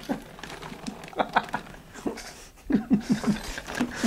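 Several men laughing: a few short chuckles, then a louder run of rhythmic ha-ha-ha laughter in the second half.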